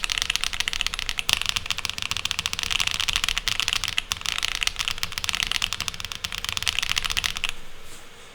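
Fast typing on a Monsgeek M1 V5 TMR keyboard fitted with Sillyworks Hyacinth V2 linear switches and GMK keycaps: a rapid run of high-pitched, clacky keystrokes that stops about seven and a half seconds in.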